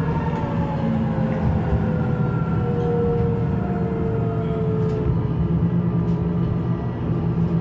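Duewag MGT6D low-floor tram's electric drive whining, the whine falling slowly in pitch as the tram slows and dying away about five seconds in, over a steady low hum from the car.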